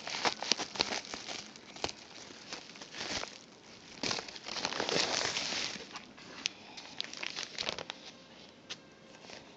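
Plastic packaging crinkling and rustling as a poly bubble mailer is cut open with scissors and a clear plastic bag is pulled out and handled: scattered sharp crackles, with a louder run of rustling about four to six seconds in.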